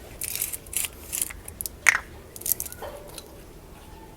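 Plastic 2T oil bottle being handled and opened: irregular crinkling and clicking, with one sharp click about two seconds in.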